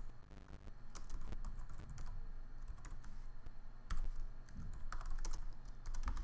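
Computer keyboard keystrokes: irregular typing of a command line, with uneven gaps between clicks.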